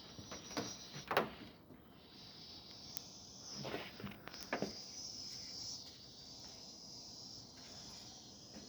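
A few scattered knocks and creaks, mostly in the first half, over a faint steady high hiss.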